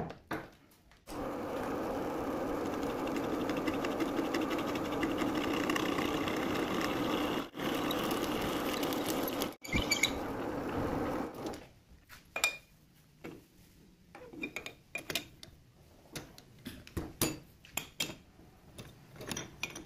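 Metal lathe running, a twist drill in the tailstock boring into the spinning workpiece, a steady machine sound for about ten seconds before it stops. After that come scattered light clicks and knocks of metal parts being handled.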